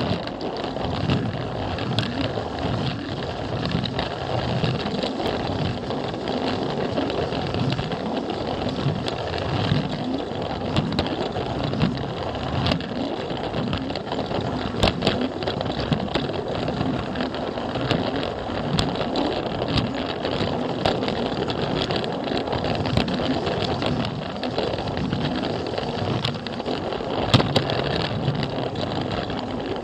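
Battery-powered Plarail toy train's motor and gears running steadily while it carries a camera car along plastic track, with scattered sharp clicks.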